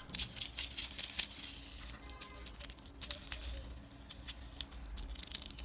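Light, irregular clicks and rustles of small plastic toys being handled, over a faint low hum.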